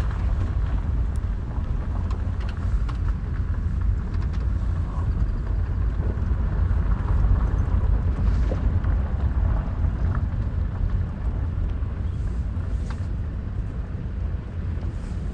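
A vehicle driving slowly on a dirt road: a steady low rumble of engine and tyres.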